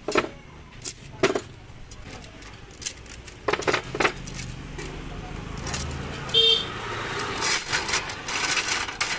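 Irregular sharp metal clinks and clatters, one ringing clearly about six and a half seconds in, over a steady low rumble of traffic.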